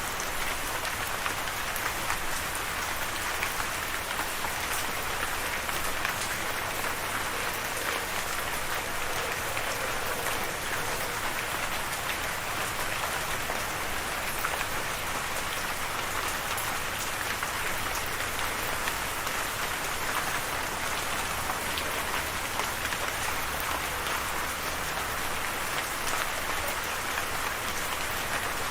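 Steady rain falling, an even patter with many small drops ticking on a hard surface.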